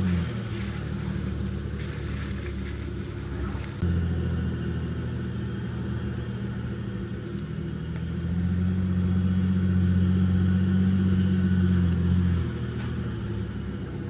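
Jeep Gladiator's engine pulling at low speed over a dirt trail, heard from inside the cab as a steady low drone. It steps up in level about four seconds in, is loudest from about eight to twelve seconds in as the truck climbs a slope under more throttle, then eases off.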